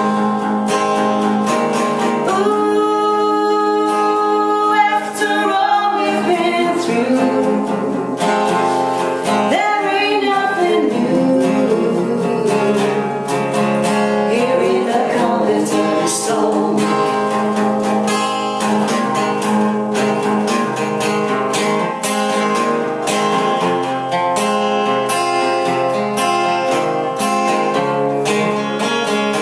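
Acoustic guitar strumming a steady rhythm, with wordless singing gliding through held notes for roughly the first ten seconds, then guitar carrying on alone.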